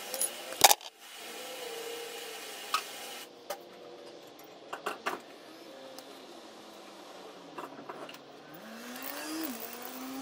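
Scattered metal clicks and knocks from tools and parts being handled on the truck, with one loud knock about half a second in, over a low hum with a tone that dips and then rises near the end.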